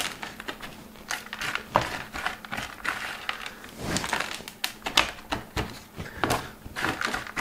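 Old bonsai soil crumbled by hand and dropped into a small plastic pot: an irregular run of soft crackles and rustles as the gritty grains fall against the plastic and each other.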